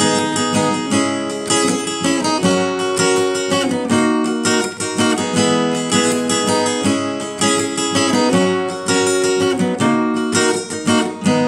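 Acoustic guitar strummed in chords, playing the instrumental introduction of a song before the singing begins.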